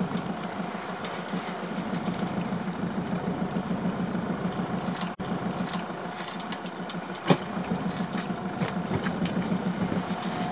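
Small boat's engine idling with a steady, rapid pulse. There is a single sharp knock about seven seconds in.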